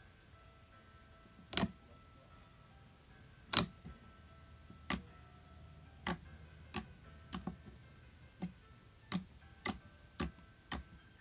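Slime being squished and played with, making a series of sharp, irregular clicks and pops that come faster in the second half, over soft background music.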